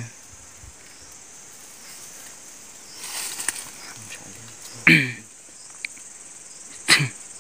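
A steady, high-pitched insect chorus. A brief rustle comes about three seconds in, and two short, loud pitched cries come about five and seven seconds in.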